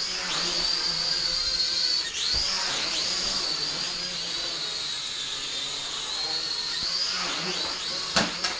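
Drone propellers whining in flight at a high, fairly steady pitch, which dips sharply and climbs back about two seconds in. Two sharp clicks near the end.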